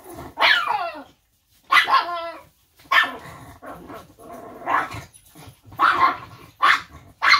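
Small dogs barking and yelping repeatedly: a falling yelp near the start, then a string of short barks about once a second.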